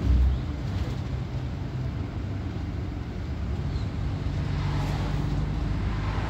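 Low engine hum and road rumble inside a moving bus, with a thud right at the start as it goes over a bump.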